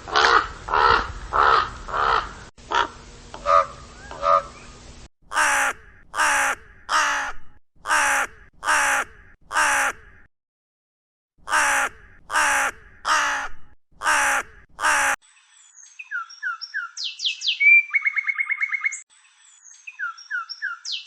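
Bird calls in several joined recordings: a long series of harsh, repeated calls, evenly spaced, with a short gap about ten seconds in. From about fifteen seconds a different, smaller bird takes over with short whistled notes and rapid trills.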